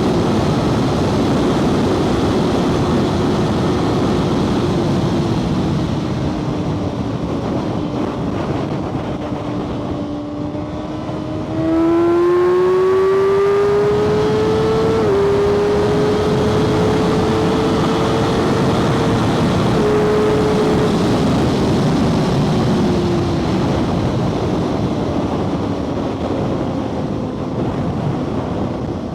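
Kawasaki ZX-6R 636 inline-four engine running on the road over a steady rush of noise. Its note sinks slowly as the bike eases off, then about twelve seconds in the throttle opens and the pitch climbs. The pitch dips briefly at a gear change about three seconds later, holds, and falls away again after about twenty-three seconds.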